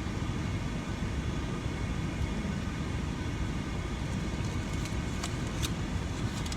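Steady rushing noise of blowing air, really loud, with a few faint clicks in the second half.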